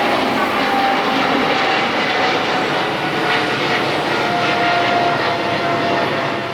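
Jet airliner departing: a loud, steady engine rush with a faint whining tone running through it.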